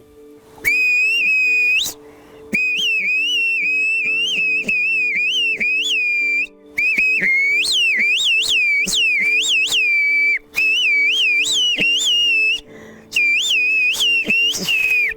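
Turkish whistled language (kuş dili): a person whistling a message as five long, high, loud phrases, the pitch flicking up and down quickly, with short pauses between them.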